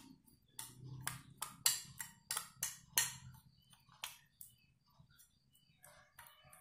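A metal spoon stirring a thick slime mixture in a small glass bowl: a run of sharp, irregular clinks and taps of the spoon against the glass, several a second, thinning out in the second half.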